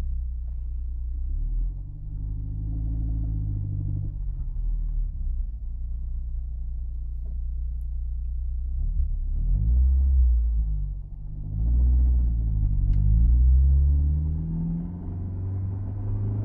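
Honda S2000's four-cylinder engine and drivetrain under way, the engine note rising and falling several times over a heavy low rumble.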